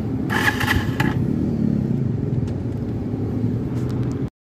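Motorcycle engine idling steadily in neutral, heard from the saddle, with a short burst of higher-pitched noise about half a second in. The sound cuts off abruptly near the end.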